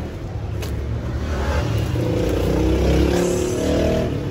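A motor vehicle engine passing close by: a low rumble that grows louder through the middle, with its engine note rising a little, then eases off near the end.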